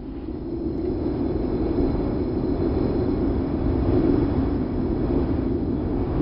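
Wind sound effect: a deep, rushing wind with a low rumble, swelling over the first second or so and then blowing steadily.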